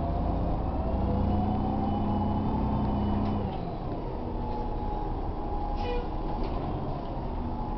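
New Flyer low-floor city bus's diesel engine and drivetrain heard from inside the cabin, pulling with a whine that rises in pitch for about three seconds, then easing off as the bus rolls on. A brief rattle about six seconds in.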